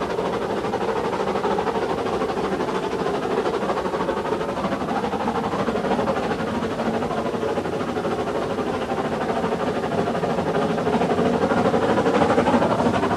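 Steam rack train of the Brienz Rothorn railway running, a steady, unbroken mechanical noise that grows slightly louder near the end.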